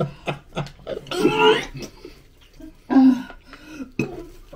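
A person coughing in short bursts and making gagging, throat-clearing noises while forcing down a dry dog biscuit, with a longer strained vocal sound about a second in and another near three seconds.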